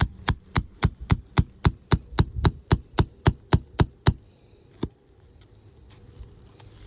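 Roofing hammer striking in quick, even blows, about four a second for some four seconds, then one last blow a moment later, hammering on an asphalt shingle roof during nail removal.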